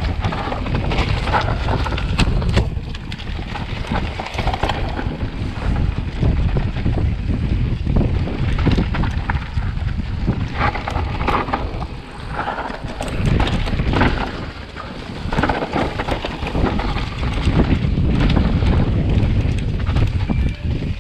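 Vitus Sommet CRX mountain bike descending a dirt singletrack: wind buffeting the bike-mounted camera's microphone as a heavy rumble, with tyres on the dirt and frequent knocks and clatter from the bike over bumps.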